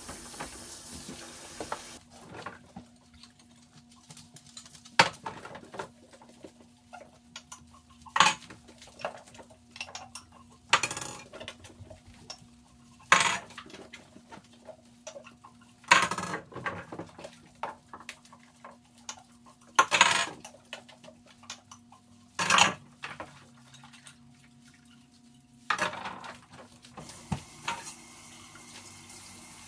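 Dishes and cutlery clattering and clinking as they are handled, in irregular sharp knocks every second or few, over a faint steady hum. A hiss fills the first two seconds, then stops.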